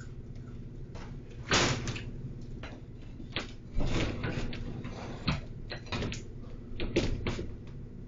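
Scattered knocks, clatters and rustling as a person handles objects on a cluttered desk, with a steady low hum from a security camera's microphone beneath; the loudest knocks come about a second and a half in, about four seconds in and about seven seconds in.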